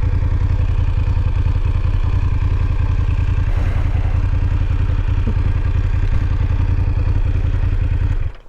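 BMW F850GS parallel-twin motorcycle engine running steadily at idle, then switched off near the end, cutting out suddenly.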